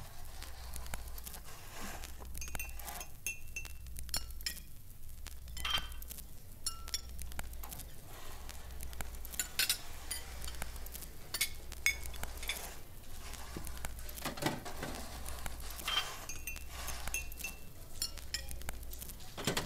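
Scattered glassy clinks and chinks, some ringing briefly, over a low hum that pulses about once a second: the sound score of a contemporary dance piece.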